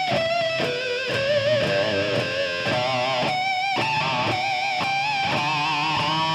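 Electric guitar playing a lead line full of high, squealing pinch harmonics, the notes shaken with wide vibrato and changing every fraction of a second.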